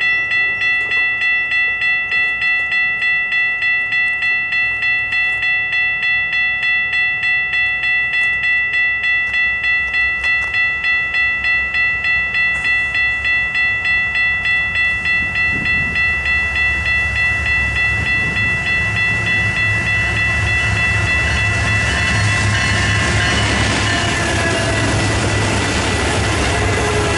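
Railroad crossing warning bell ringing steadily, about two strokes a second. Over the last several seconds a freight train led by Canadian Pacific SD30C-ECO diesel locomotives approaches and passes: engine rumble and wheel noise build up and drown out the bell.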